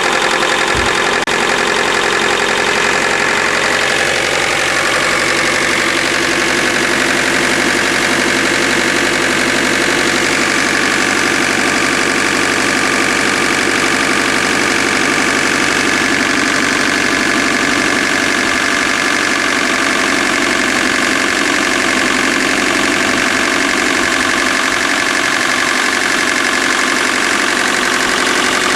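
Subaru EJ25 2.5-litre flat-four engine idling steadily with a knock, which the owner suspects is either piston slap or worn rod bearings.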